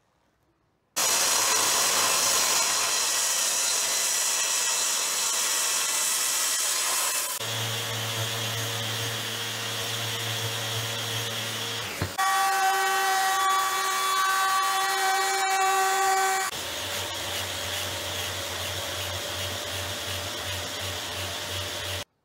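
Electric random orbital sander running on hardwood, hooked up to a dust extractor. Its sound changes abruptly several times, including a stretch of steady whine in the middle, and it cuts off suddenly near the end.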